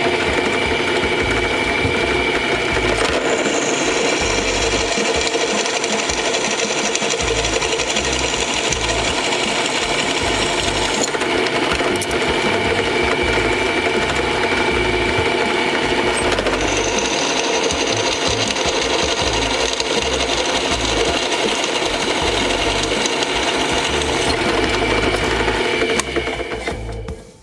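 Electric grinder running on a steel knife blade: a steady, even grinding noise with a high whine that shifts pitch a few times. It dies away near the end.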